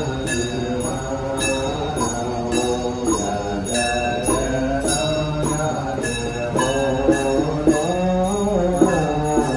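Buddhist chanting: a sustained, sliding sung melody over a steady percussive beat with a bell-like ring, about two to three beats a second.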